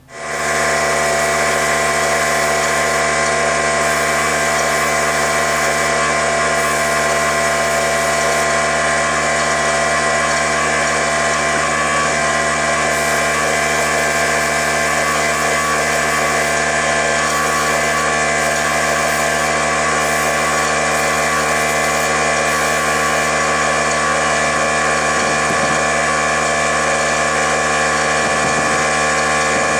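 A small electric motor running steadily: a constant whirring hum with a high whine, switched on abruptly at the start and holding an even pitch.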